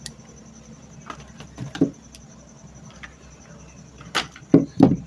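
Handling knocks and clicks from work on fan parts and wiring: a few light clicks, a short cluster of knocks, then three louder knocks in the last second.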